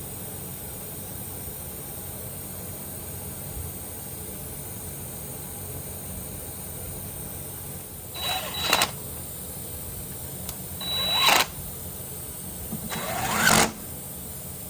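Three short bursts of hand-tool work, each building for under a second and cutting off sharply, over a low steady hum, during the fitting of the rocker arm assembly onto the pushrods of a Mahindra tractor diesel engine.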